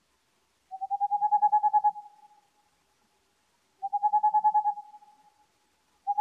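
Boreal owl (Tengmalm's owl) calling from its nest cavity in a tree at night. It gives rapid trills of hoots at one steady pitch, about ten notes a second, each trill lasting about a second and then trailing off. Two trills about three seconds apart, with a third starting at the very end.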